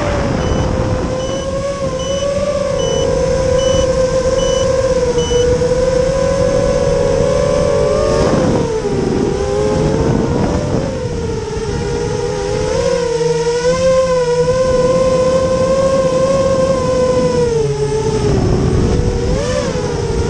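FPV quadcopter's brushless motors and propellers whining, the pitch rising and falling as the throttle changes, over a steady rush of air. A high, thin beep repeats about twice a second for the first five seconds.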